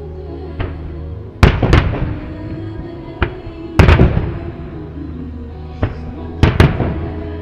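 Aerial firework shells bursting over steady music: three loud double bangs, about a second and a half in, about four seconds in and near the end, each with a decaying rumble, and fainter single pops between them.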